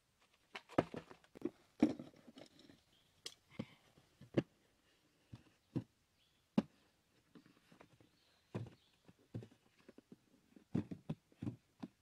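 Irregular knocks, taps and scuffs of hands working on bare ground and handling a cardboard box, the sharp knocks coming one or two at a time every second or so, with a quick cluster near the end.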